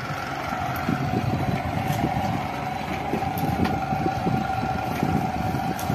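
Outboard motor of a small boat running with a steady hum as the boat moves off from the raft.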